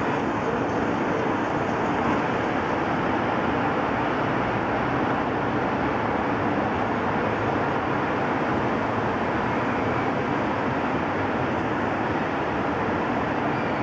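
Steady outdoor city background noise: an even, unbroken rumble and hiss with no distinct events.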